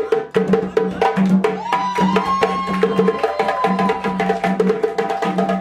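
Live hand drumming on djembe and a slung barrel drum, playing a fast, dense rhythm. About a third of the way in, a long high note rises and is held over the drums for about two seconds.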